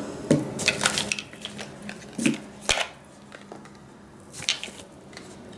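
Small cosmetic packages being handled and sorted: a run of small clicks and rustles, busiest in the first couple of seconds, then quieter with a few more rustles near the end.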